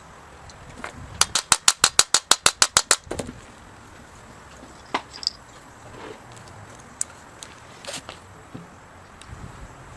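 Impact wrench hammering on the alternator pulley nut: a rapid run of about a dozen sharp blows lasting under two seconds, followed by a few light metallic clinks of parts being handled.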